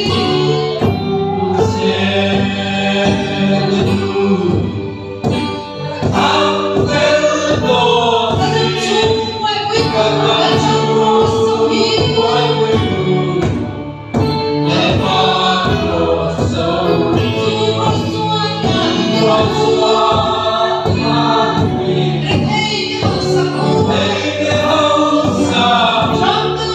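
A congregation singing a gospel worship song together, with a large drum beating time.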